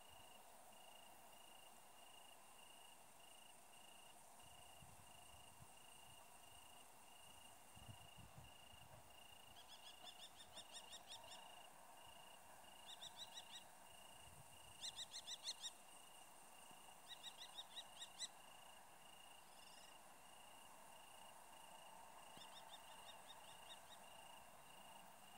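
Faint open-field ambience at dusk: an insect chirps on a single high note, several times a second without pause. A bird gives a few short bouts of rapid repeated notes, from about ten seconds in to near the end.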